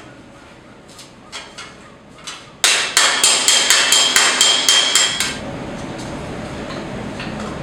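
Hammer blows on a sheet-metal bowl held over a steel stake. A few light taps come first, then, about two and a half seconds in, a quick run of about a dozen loud ringing strikes, roughly five a second. After that comes a steady low rumble.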